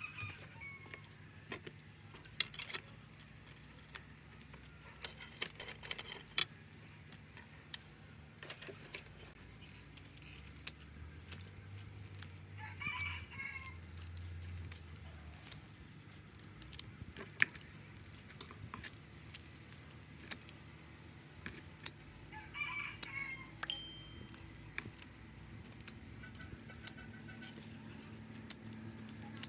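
Metal tongs and a knife clicking and tapping against grilled eel and a wooden cutting board as the eels are pulled off their skewers and cut up. A rooster crows in the background twice, once near the middle and again about three-quarters of the way through.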